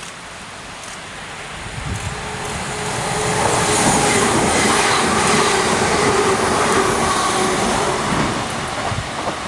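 A train running along the platform, growing louder over the first few seconds, with a steady whine over the rumble of the wheels, then easing off near the end.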